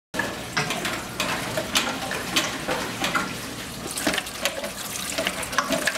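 Water from a rope pump's PVC outlet pipe pouring and splashing into a stainless steel bowl, with irregular spatters.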